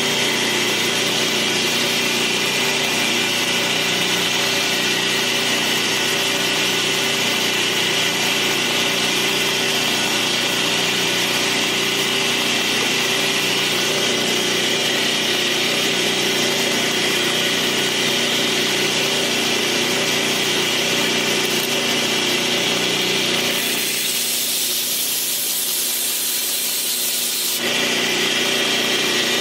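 Power sharpening grinder running steadily while a Damascus steel knife blade is held against it to put the first edge on a blunt blade. For about four seconds near the end the lower part of the sound drops away, leaving a higher hiss.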